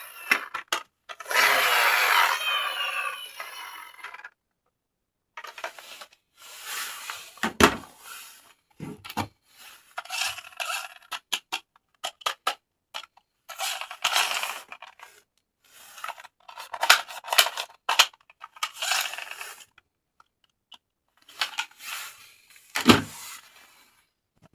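Plastic toys and their packaging being handled: irregular rustles, scrapes and small clicks, with a louder stretch of rustling early on and a soft thump about eight seconds in and another near the end.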